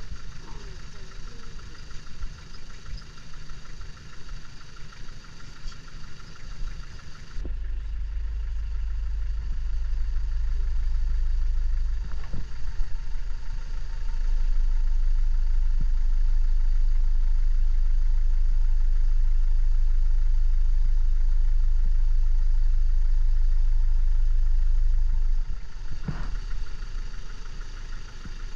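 Safari vehicle's engine running at low speed. About a third of the way in, a much heavier, deep low rumble sets in and holds until near the end, with a few knocks along the way.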